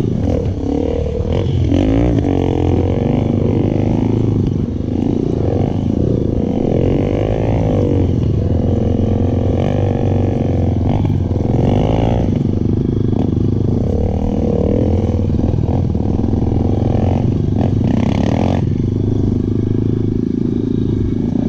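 Enduro motorcycle engines running and revving up and down, their pitch rising and falling over and over as the bikes ride the dirt track.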